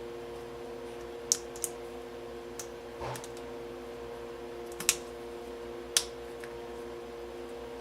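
Five sharp clicks and taps of a watch guard being handled and snapped onto a G-Shock watch case, the loudest two near the end, over a steady electrical hum.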